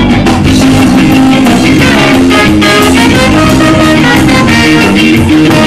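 Live band playing loud and without vocals: trombone and trumpet over electric guitar and drums.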